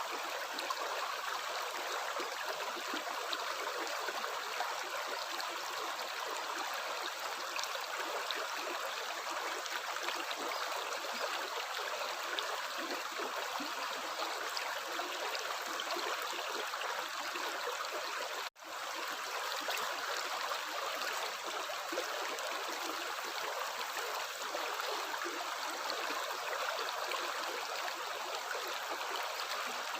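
Steady babbling of running water in a stream. About two-thirds of the way through it cuts out for an instant and fades back in.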